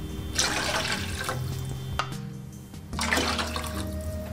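Water splashing and sloshing in a steel cooking pot as water is added for soup, in rushes about half a second in and again about three seconds in, over soft background music.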